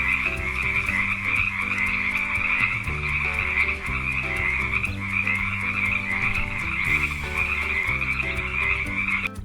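Frog croaking in a continuous raspy trill that stops just before the end, over a soft musical backing.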